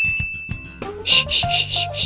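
Background music: a held high tone over a low bass line, then from about a second in a quick, regular hissing beat of about four strokes a second with a few short melody notes.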